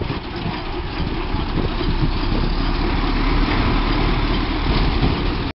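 McLaren steam traction engine standing while it takes on water through its hose: a steady rushing noise, with rough low buffeting from wind on the microphone. The sound cuts off suddenly at the very end.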